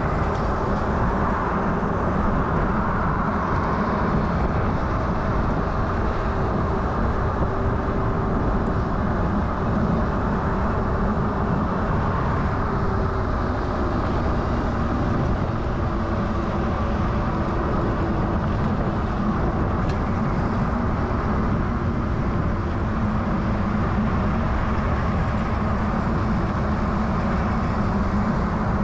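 Steady wind rush and road noise on a GoPro's microphone while riding an electric bike along a city street, with a faint hum underneath.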